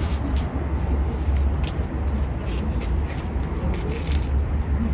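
Steady wind rumble on the microphone, with a few faint short clicks.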